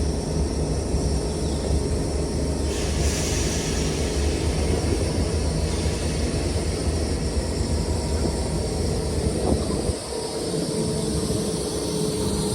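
Class 319 electric multiple unit departing a station, pulling away with a steady low rumble and a faint electric hum. A hiss comes in about three seconds in and fades out a few seconds later.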